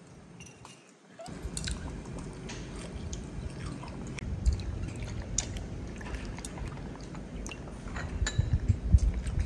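A baby monkey eating from a spoon: small chewing mouth sounds with light clicks and clinks of metal utensils against ceramic bowls.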